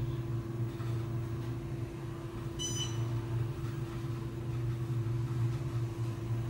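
Otis hydraulic elevator car travelling upward: a steady low hum with a steady higher tone over it. About two and a half seconds in comes a short, high electronic beep as the car passes a floor.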